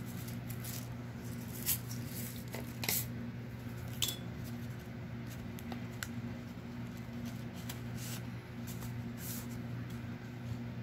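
Light rustles, taps and clicks of hands handling paper journal pages and a small glossy embellishment tile, over a steady low electrical hum.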